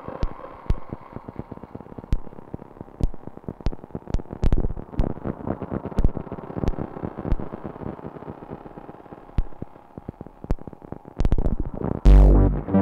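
Electronic noise improvisation from a synthesizer rig (Koma Elektronik Field Kit, Bastl SoftPop II and Bastl Microgranny through a Zoom MultiStomp pedal): a stream of irregular sharp clicks and crackles over fading tones, until a loud low bass pulse comes in near the end.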